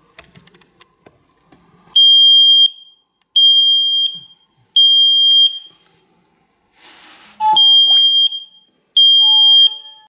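Tuya smoke detector's built-in siren going off in alarm, set off by smoke from burning paper. It gives loud, high-pitched beeps of under a second each, repeating about every second and a half, with a longer gap after the third. A few light clicks come before it and a short hiss falls in the gap.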